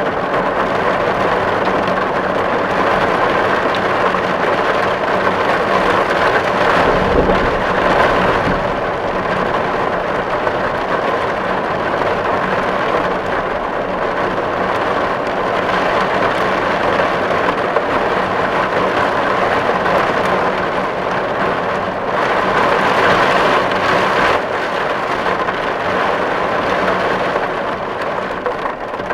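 Steady, dense rain drumming on a tin roof. It swells briefly about seven seconds in with a low rumble, and again a little past twenty seconds.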